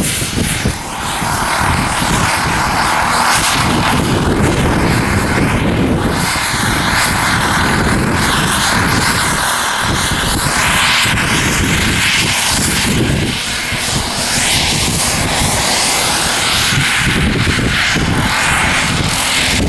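Radio-controlled scale LongRanger helicopter running steadily as it lifts off and flies, its motor and rotor blades making a continuous drone.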